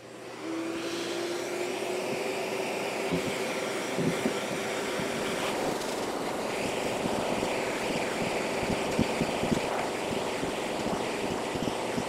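SEBO D4 canister vacuum cleaner switching on about half a second in, its motor whine rising slightly in pitch as it spins up and then running steadily with a rush of suction. Irregular small knocks come through as clumps of animal hair are sucked into the hose wand.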